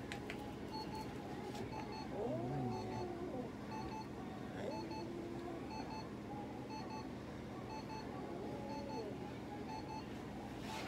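Cat giving several long, drawn-out yowls while held, with short electronic beeps repeating evenly throughout.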